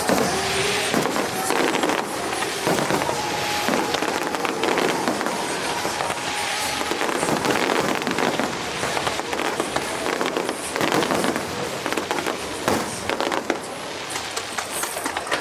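Fireworks display: aerial shells bursting and crackling, many quick reports one after another.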